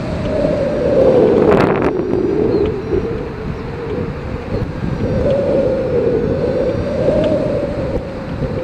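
Wind rushing over a camera mounted on a hang glider's wing in flight, a steady drone that wavers up and down in pitch, with a louder gust about a second and a half in.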